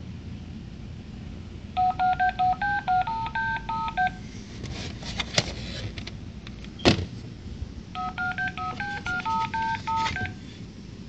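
The Operation board game's electronic sound-effects unit plays a short tune of quick stepped beeps, and it does so twice, each time for about two seconds. Between the two tunes come a few plastic clicks and one sharp knock.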